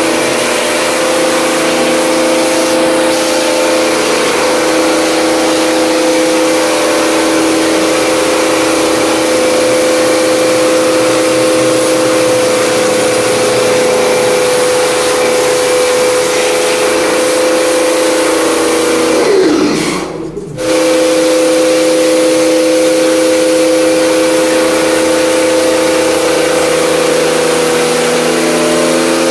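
Bosch electric pressure washer running: a steady motor hum under the hiss of the water jet spraying a split air conditioner's indoor coil. About two-thirds of the way through, the motor's pitch falls and it stops for about a second, then starts up again.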